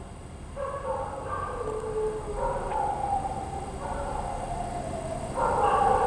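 Dogs barking outside, heard through an open window: a run of pitched barks and yelps, one after another about every second.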